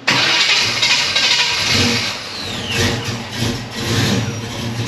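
1964 Chevelle's small-block Chevy V8 running just after start-up, driving its new dual V-belt pulley setup, with a falling whine about halfway through.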